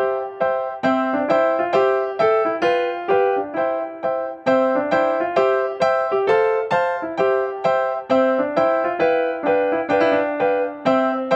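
Cartoon background music: a simple, cheerful keyboard melody in a piano-like tone, its notes struck at an even pace of about two a second.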